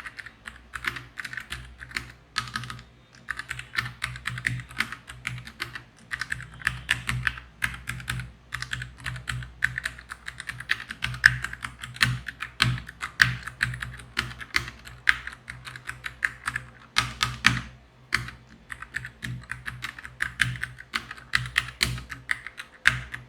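Typing on a NuPhy Air 75 low-profile mechanical keyboard with Gateron Red linear switches: a rapid, continuous run of key clicks, broken by a couple of short pauses.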